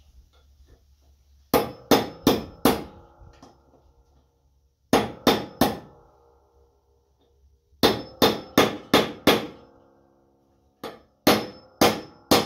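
Hammer blows on the steel mower deck's blade and spindle, in four bursts of three to six quick strikes, each followed by a metallic ring. The hammering is aimed at freeing a stubborn blade nut that the wrench keeps slipping on.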